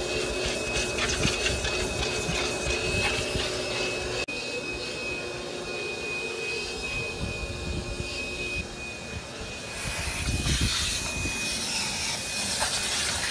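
Pressure washer running and spraying water: a steady rushing hiss with a constant high whine. It breaks off for an instant about four seconds in and carries on unchanged.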